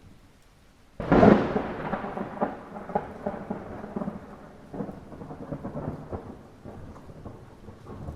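A close thunderclap in light rain: a sudden loud crack about a second in, followed by a long crackling rumble that slowly dies away over the light patter of rain.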